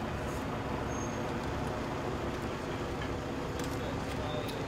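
A steady, even engine drone from idling emergency vehicles, with a few faint clicks near the end.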